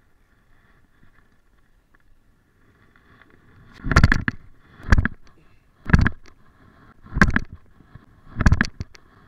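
Five loud footsteps about a second apart, starting about four seconds in.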